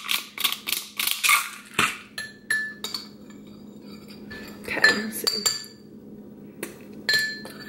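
A hand spice grinder twisted over a bowl: a quick run of crunching clicks for about two seconds. Then a spoon stirs dressing in a ceramic bowl, clinking against the rim with short ringing clinks, several of them about five seconds in.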